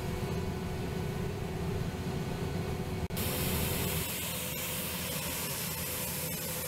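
Palesse GS12 combine harvester with a stripper header running while harvesting wheat: a steady low drone with a humming tone, heard from inside the cab. About halfway through the sound cuts abruptly to an outdoor recording of the combine working, dominated by a loud even hiss over a fainter machine hum.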